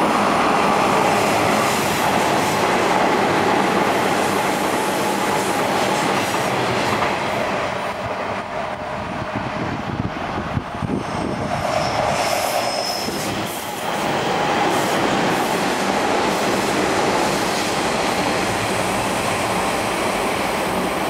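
Hanshin 8000 series electric train running along the track, a steady loud rumble of wheels on rail with clatter, and a brief high wheel squeal about halfway through.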